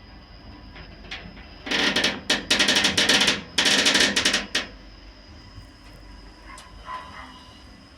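BelTransLift passenger lift car creaking and rattling hard while travelling between floors. The noise comes as a run of harsh, rapid-clicking bursts over about three seconds, starting a couple of seconds in, above a faint steady high whine.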